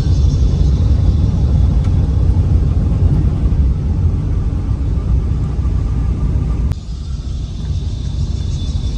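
Steady low rumble of a vehicle travelling along a rough road. A sharp click comes about two-thirds of the way through, after which the rumble is a little quieter.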